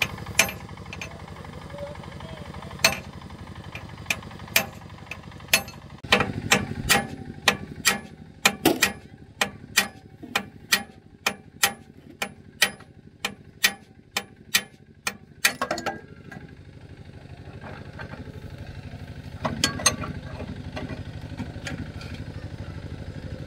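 Sharp metal-on-metal hammer strikes on a walk-behind tractor's engine during an engine teardown, with the cylinder liner being worked on. A few scattered blows come first, then a steady run of about two strikes a second for roughly ten seconds, then a brief cluster near the end, all over a low steady hum.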